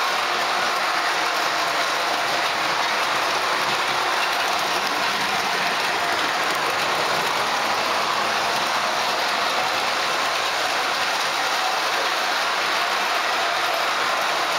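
Ace Trains O gauge model of a Southern Railway Schools class locomotive running on tinplate three-rail track: a steady, even metallic whir and rattle of the motor, gearing and wheels on the rails.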